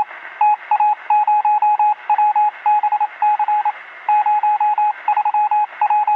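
Electronic beeping at one steady pitch, in rapid irregular groups of short and longer beeps like Morse code, over a steady radio-like hiss.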